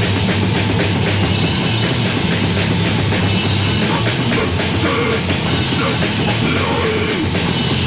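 Loud heavy metal/punk band recording from a 1987 demo tape: distorted guitars, bass and drum kit playing continuously.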